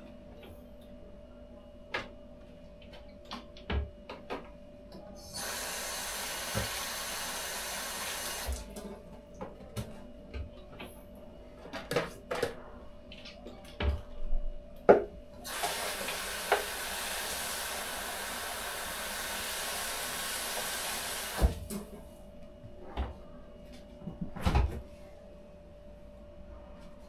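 Tap running twice, once for about three seconds and then for about six seconds, with scattered knocks and clatter of things being handled between and around the two spells.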